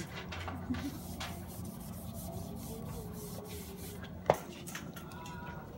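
Marker tip rubbing across a whiteboard in short strokes, with one sharp click about four seconds in, over a steady low hum.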